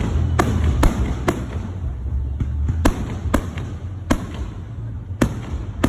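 Aerial fireworks going off in a quick, irregular string of sharp bangs, with a short gap about two seconds in. A steady low rumble runs underneath.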